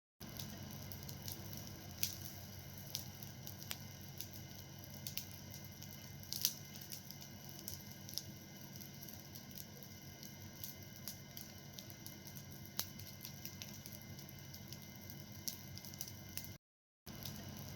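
Wood fire burning with a soft steady hiss and irregular sharp crackles and snaps, a few louder pops among them. The sound cuts out for about half a second near the end.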